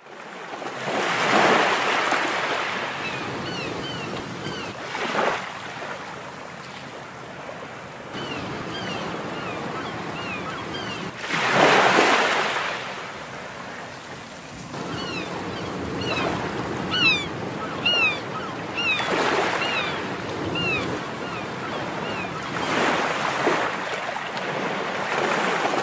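Ocean surf: waves wash in and break every few seconds, each one swelling up and fading away. Many short bird calls sound over the surf through the middle stretch.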